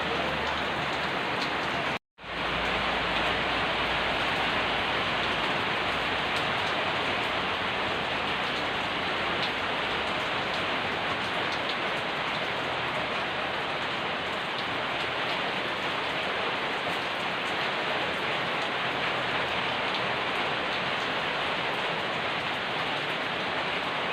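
Steady rain falling, an even hiss with faint scattered drop ticks, broken by a brief silent gap about two seconds in.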